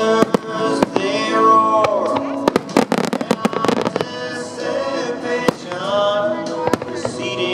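Fireworks going off in sharp bangs, with a rapid run of crackling bangs about three seconds in, over loud music with a singer.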